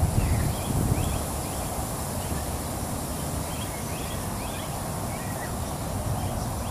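Outdoor ambience: birds chirping briefly now and then over a low, steady rumble.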